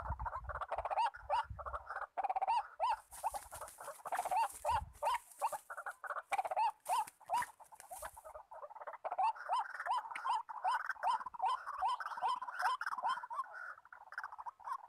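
White-breasted waterhen calling: a long run of short, rising croaking notes, about three a second, with a rushing hiss from about three to eight seconds in.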